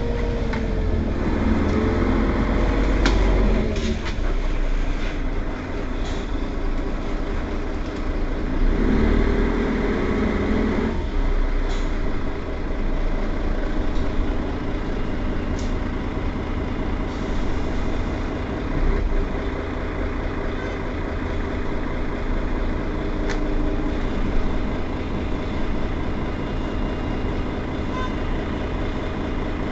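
Mercedes-Benz Citaro Facelift city bus's engine running with a steady low rumble, with a few sharp clicks and rattles.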